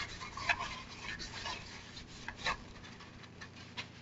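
Hands handling a plastic RC buggy: scattered light clicks and rubbing over the first couple of seconds, then quieter.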